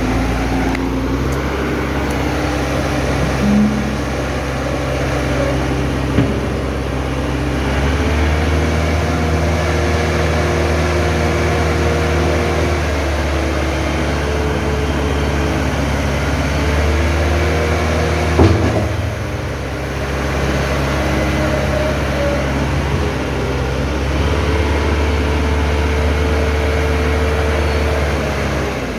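JCB backhoe loader's diesel engine running, its pitch stepping up about 8 s in and shifting several times, as when it is revved to work the hydraulics. A sharp knock comes about 18 seconds in.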